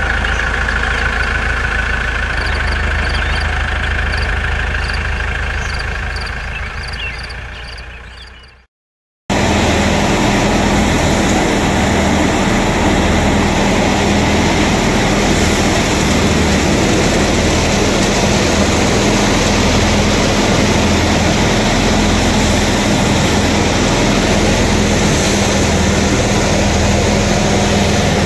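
An intro sound effect with a steady high tone and evenly spaced ticks fades out over the first nine seconds and cuts to silence. Then a tractor-driven wheat thresher runs steadily: a hum with a low throb about once a second under a broad rushing noise.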